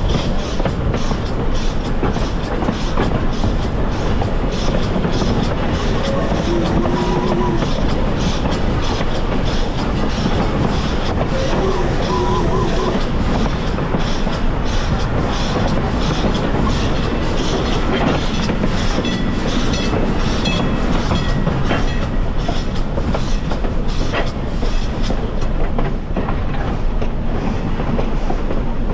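Heritage passenger train rolling along the track, heard from aboard: a steady rumble of wheels on rail with clickety-clack over the joints and a couple of brief squeals.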